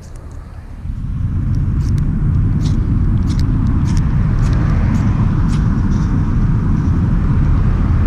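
Magnesium fire starter being struck to light tinder: short, sharp, irregular scrapes over a heavy low rumble of wind on the microphone that grows louder about a second in.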